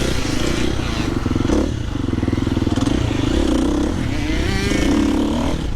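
Motocross bike engine running hard on the track, its pitch rising and falling as the throttle is opened and eased.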